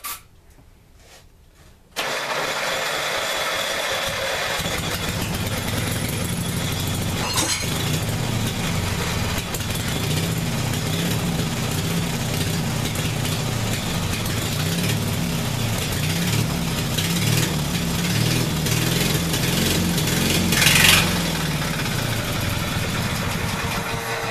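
Case 1816 skid steer's small engine starting on starting fluid: it catches abruptly about two seconds in, after a few faint clicks, and then keeps running, with the muffler only loosely set on. It runs on with an uneven low pulsing and one brief louder surge near the end.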